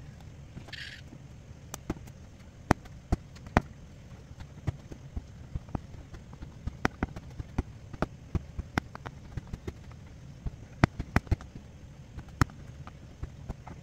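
Aari hook needle punching in and out of net fabric while chain-stitching zari thread: irregular sharp ticks, about one or two a second, over a low steady hum.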